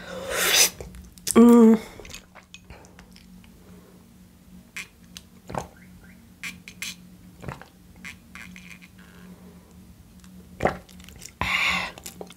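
Eating sounds while tom yum broth is drunk from a bowl: a loud breathy exhale at the start and a short hummed vocal sound, then faint mouth clicks and small taps, and another loud breathy sound near the end. A low steady hum runs underneath.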